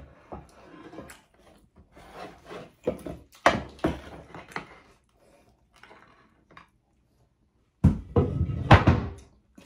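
Close-up eating and table-handling noises: scattered sharp clicks and knocks, then a louder run of knocking and rustling about eight seconds in.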